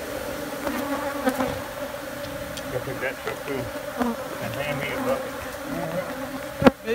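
A colony of Africanized honey bees buzzing around its opened nest as the combs are cut out: a steady swarm hum with individual bees zipping past close by, rising and falling in pitch. A single sharp knock near the end.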